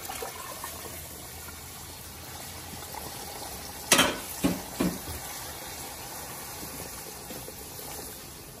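Water poured from a small saucepan into a big pot of hot tomato paste and oil, which sizzles and bubbles steadily as a wooden spoon stirs it. Three sharp knocks come about halfway through, the first the loudest.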